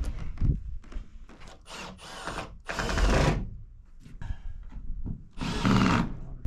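A power drill running in three short bursts, each under a second, with a few knocks before the first.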